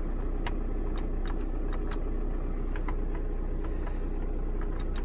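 VW Crafter diesel engine idling with a steady hum, heard from inside the cab. About a dozen sharp clicks come at uneven intervals over the hum.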